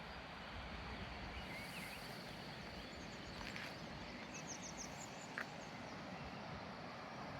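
Steady rushing of running water, with a quick run of high bird chirps about halfway through and one sharp click shortly after.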